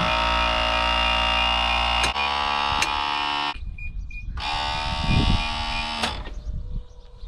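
Truck's electric cab-tilt pump running with a steady whine while the cab tips forward. It stops about three and a half seconds in, runs again for under two seconds, then cuts off.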